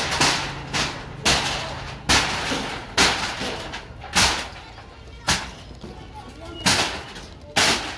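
Sledgehammer blows pounding a stall apart in a demolition, about eight sharp, heavy strikes, roughly one a second, each ringing briefly.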